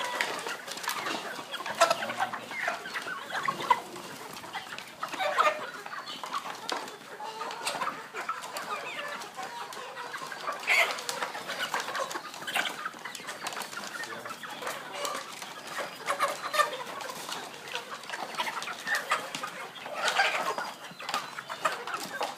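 A crowd of chickens clucking, many short calls overlapping, with louder ones standing out every few seconds.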